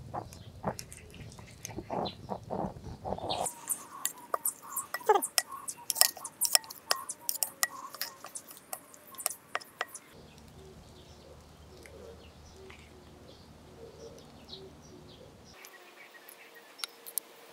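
Wooden spatula and spoon clicking and scraping against a ceramic plate as a rolled omelet is slid from a frying pan and shaped, in quick sharp taps that are loudest through the middle, with faint bird chirps behind. The background changes abruptly a few times.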